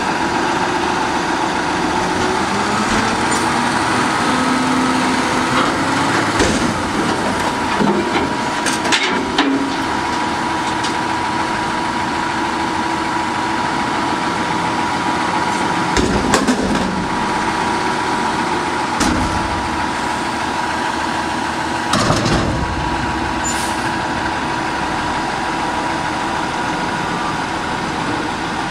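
New Way Mammoth front-loader garbage truck running its hydraulics with a steady whine as the arms lift a dumpster over the cab, empty it into the body and lower it again. Several loud bangs come as the steel container knocks against the stops and its load drops out, about a quarter of the way in, then a third, past halfway and again later.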